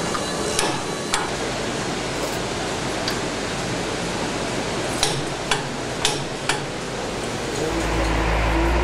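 Steady hiss of a paint-hangar's ambience, broken by about seven sharp knocks. Near the end it gives way to a low steady hum.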